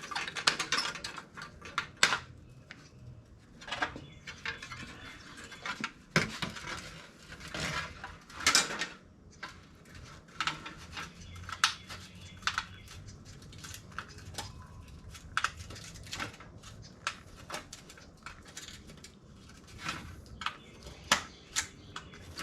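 Tin snips cutting the sheet metal of a bicycle's rear fender: irregular sharp metallic snips and clicks, with short rasping strokes and the odd louder clank.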